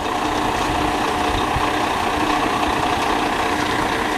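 Diesel locomotive engine idling steadily, a constant mechanical running sound with a couple of held tones in it.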